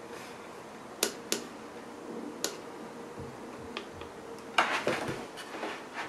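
Small sharp clicks of fingernails on the plastic locking latch of a ribbon-cable connector as it is pried open, three of them in the first few seconds, then a short scraping rustle near the end as the cable is worked loose.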